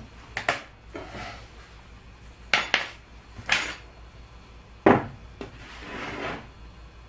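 Metal clinks and clatter of a helping-hands soldering stand being handled on a wooden workbench while its clip arms are positioned: four sharp knocks a second or so apart, with softer rubbing between them.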